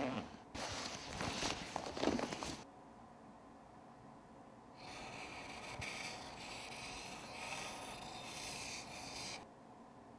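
Rustling and scraping of a backpack being opened and rummaged through for about two seconds. After a pause comes about four and a half seconds of hissy, scratchy pencil scribbling on paper.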